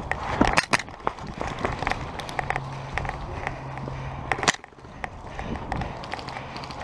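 Footsteps and gear clatter of a player moving, with many scattered sharp clicks and knocks. A loud knock about four and a half seconds in is followed by a brief lull.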